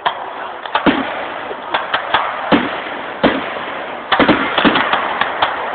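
Fireworks going off: single bangs every half second or so, then a rapid run of crackling reports about four seconds in.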